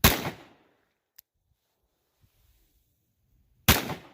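Two gunshots from a Taurus Judge revolver firing .410 shotshells, about three and a half seconds apart, each a sharp crack with a short tail.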